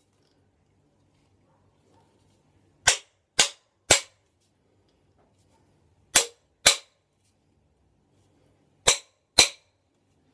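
Hammer blows on the end of a wooden gum-tree handle, driving a hammerhead onto it while the handle is held unsupported. There are seven sharp knocks: a quick group of three, then two pairs, each group about half a second between blows.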